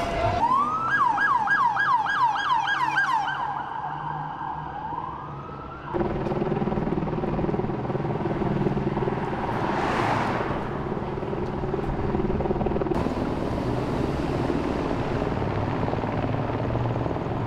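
Police siren yelping, about three fast up-and-down sweeps a second, then changing to a slow rising wail. About six seconds in it cuts off abruptly to steady street traffic noise, with a whoosh that swells and fades around ten seconds in.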